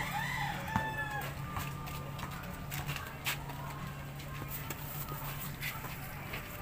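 A rooster crows once at the start, a single call of about a second. A few sharp knocks follow: a basketball bouncing on the concrete court, over a steady low hum.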